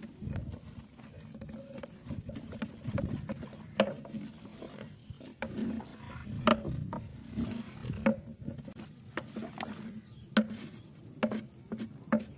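Wooden stick stirring meat and onions in a clay pot, with irregular knocks and scrapes of the stick against the pot's rim and sides.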